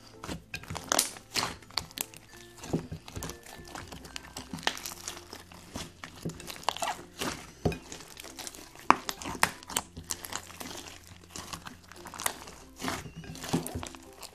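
Purple glue slime mixed with polystyrene foam beads being kneaded, squeezed and stretched by hand, giving off irregular sticky pops and crackles. Quiet background music runs underneath.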